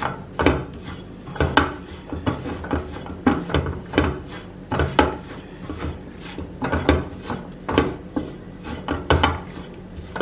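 A spatula scraping and stirring a thick onion-tomato masala around a nonstick kadai, in short irregular strokes about one or two a second, frying the freshly added chilli powder into the masala.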